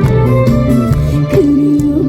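Trot song played loud through a stage sound system: band accompaniment with a melody line that holds one long note in the second half.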